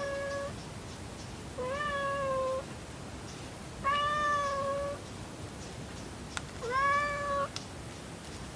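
Domestic cat meowing repeatedly, four drawn-out meows about two seconds apart, each held for around a second.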